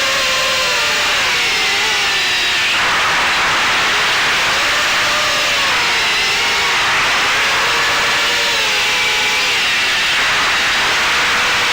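Eachine Wizard X220 quadcopter's brushless motors and propellers whining in flight. The pitch rises and falls again and again with the throttle, over a steady rushing noise, picked up by the onboard camera's microphone.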